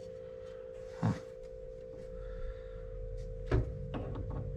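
Cordless drill worked against a metal fuse box on stuck brass screws: two sharp clanks of metal on metal, about a second in and again past three seconds, then the drill motor starting up slowly and building under load toward the end. A steady hum runs underneath.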